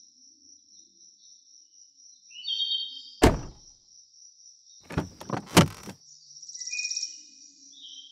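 Car doors being shut from outside: one heavy thunk a little over three seconds in, then a quick run of three or four more thunks about two seconds later.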